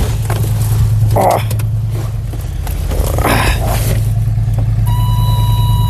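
A vehicle engine that has already been started, idling with a steady low rumble. There are short scuffing noises about a second and three seconds in. About five seconds in, a steady high-pitched warning buzzer starts, as from a vehicle's dashboard.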